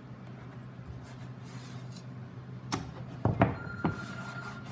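Hands working blue painter's tape onto a plastic underbody panel resting on plywood: a few sharp taps and knocks about three seconds in, over a steady low hum, with a faint steady high tone starting just after.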